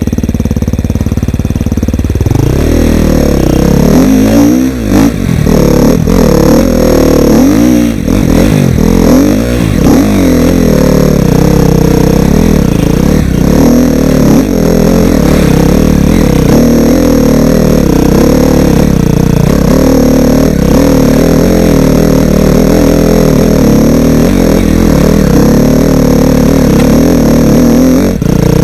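Dirt bike engine running loud under load, its pitch rising and falling again and again as the throttle is worked, then holding steadier from about ten seconds in.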